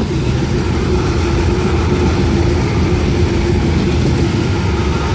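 Sydney Trains M-set (Millennium) electric train passing through the station at speed. The wheels rumble steadily on the rails, with a steady whine running through the noise. The sound swells in at the start and holds.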